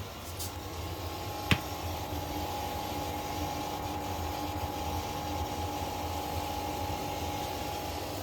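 Electrolux WP71-265WT portable air conditioner running with a steady low hum and two steady overlaid tones that sound dissonant together. The owner takes this for a fault, since a replacement unit makes the same noise, though Electrolux calls it normal. A single sharp click about one and a half seconds in.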